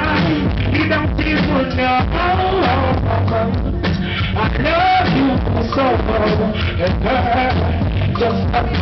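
Live reggae and dancehall music: a band with a heavy bass line and a vocalist singing over it, the bass distorting on a small camera's microphone.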